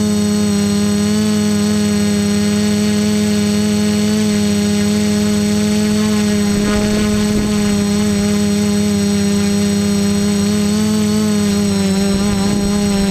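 Quadcopter's electric motors and propellers whining steadily at a near-constant pitch, heard up close from the camera mounted on the craft. The pitch dips slightly near the end, and there are a couple of brief low rumbles of wind buffeting.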